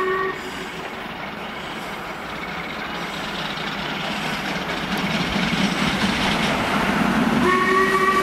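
Stanier Black Five steam locomotive 45212 approaching at speed. Its whistle gives a short blast at the start, the rumble of the train grows steadily louder, and a longer whistle blast comes near the end as it reaches the platform.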